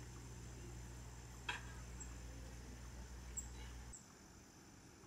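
Faint outdoor ambience: a low hum that cuts off about four seconds in, with a few short high bird chirps and one sharper call about a second and a half in.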